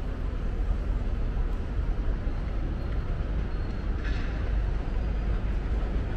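Steady low rumble of city street traffic, with a short hiss about four seconds in.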